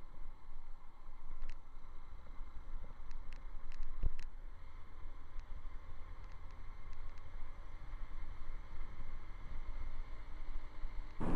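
Motorcycle riding along a road, heard as a steady, muffled low rumble with a few faint clicks and a single thump about four seconds in.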